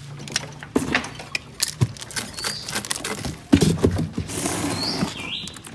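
Caged wild-caught songbirds, white-rumped shamas and magpie-robins, fluttering and scrabbling in their cages, with many sharp clicks and knocks from the cage. A burst of flapping comes a little past the middle. Two short high calls are heard, the second falling in pitch near the end.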